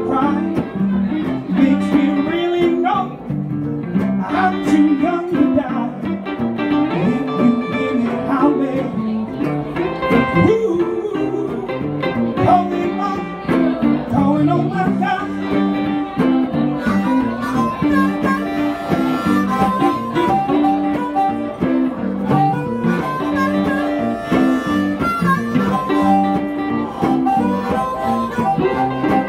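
Live blues: an amplified harmonica played cupped against a vocal microphone, with held and bent notes, over two archtop electric guitars, one of them a Gibson ES-175.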